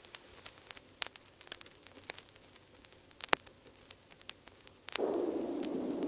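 Vinyl LP surface noise in the silent groove between tracks: faint hiss with scattered clicks and pops from the stylus. About five seconds in, a hissing whoosh starts and swells as the next track begins.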